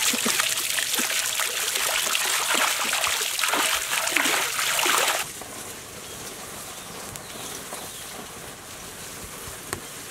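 Water gushing from a hose into a large kadai and splashing as the pan is rinsed and scrubbed by hand. It cuts off suddenly about five seconds in, leaving a much quieter background with a single sharp click near the end.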